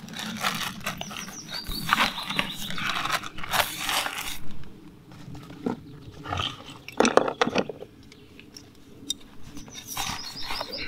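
Rustling and crinkling of a fabric bag being handled and packed by hand, with scrapes and small clicks. It comes in bursts: busiest over the first four seconds or so, a short loud flurry about seven seconds in, and again near the end.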